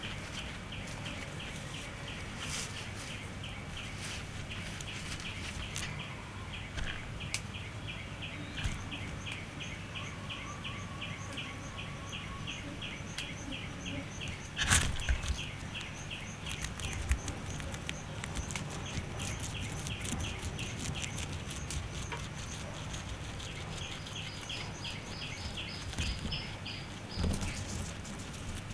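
Guinea pig munching fresh grass, with small crisp chewing clicks and rustles of the grass blades, and one louder rustle about halfway. Insects chirp steadily behind, about two to three chirps a second.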